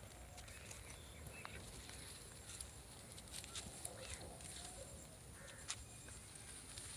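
Faint rustling of grass and dry leaves as kittens play-fight, with scattered small clicks and a few faint short chirps.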